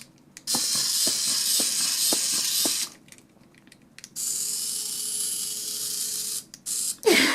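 The tiny motor of a HexBug Spider micro robot running in two spells of a couple of seconds each with a short pause between them, a high, thin buzz, with light ticks during the first spell.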